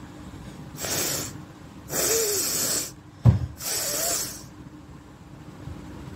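A person blowing air forcefully through the nose three times, each blast about half a second to a second long with a faint squeak running through the longer ones. A single sharp low thump, the loudest sound, comes between the second and third blasts.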